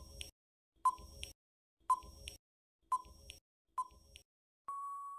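Quiz countdown timer sound effect: five short beeps about a second apart, then one longer steady beep near the end that marks time up.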